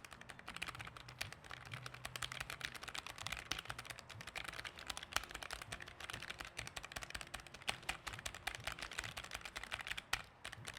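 Fast, continuous typing on a Keychron K3 low-profile mechanical keyboard: a dense, unbroken run of key clicks.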